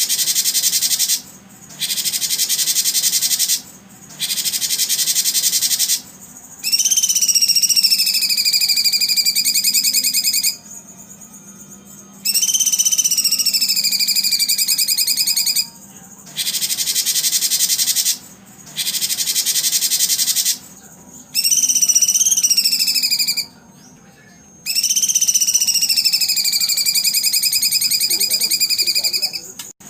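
High-pitched animal calls from a songbird training (terapi) recording: bursts of rapid, buzzy trilling a few seconds long, stopping and starting abruptly with short gaps, some with a whistled note that falls in pitch.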